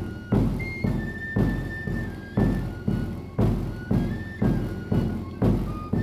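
Background music: a drum beats about once a second under a melody of held high notes on a flute-like wind instrument.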